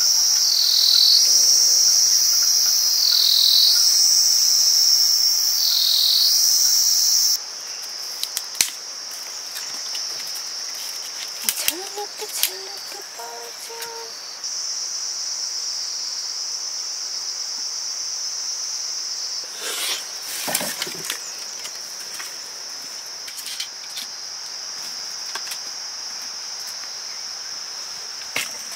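Insect chorus, a steady high-pitched trilling drone. It is loudest in the first seven seconds, where it swells and dips about every two and a half seconds, then drops suddenly in level and carries on. A few scattered clicks and knocks sound over it.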